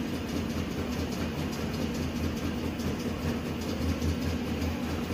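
Chevrolet Tahoe V8 idling with an uneven, pulsing beat: the engine is misfiring, which the scan tool later traces mostly to cylinders 1, 4 and 3.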